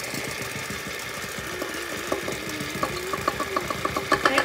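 Cuisinart electric hand mixer running, its beaters turning in a stainless steel bowl of cookie dough as flour is mixed in. A fast, even ticking of about six a second joins the steady motor hum from about three seconds in and gets louder toward the end.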